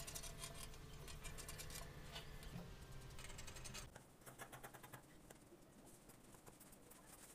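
Dressmaking scissors cutting through folded fabric in a run of quick, faint snips.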